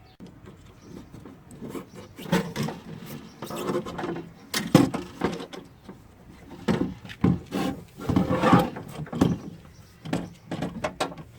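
Irregular clunks, knocks and scraping as a car window regulator and motor assembly is worked into a door's inner panel and fitted against the glass.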